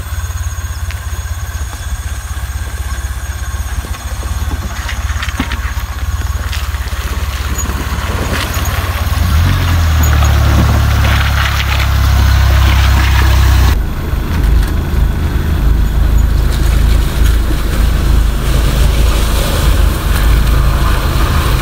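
Jeep Willys replica's engine running as it drives through a shallow stream, with a low rumble that grows louder about halfway through, along with a rushing hiss as the wheels go through the water.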